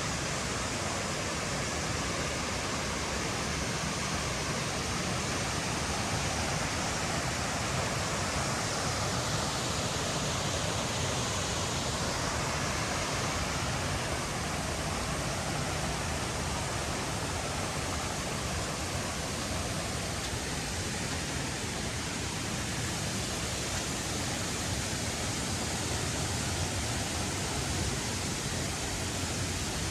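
Rushing water of a mountain stream tumbling over rocks, a steady, even noise.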